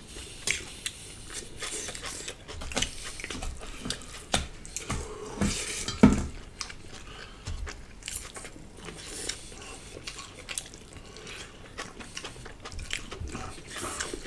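Metal fork and spoon clinking and scraping on plates and stainless steel pots, with close-miked chewing. Scattered short clicks, the loudest clack about six seconds in.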